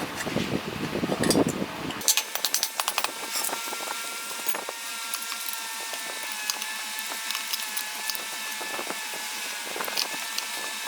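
Workshop tool noise: a run of sharp clicks and taps, with a small motor's steady whine from about three seconds in.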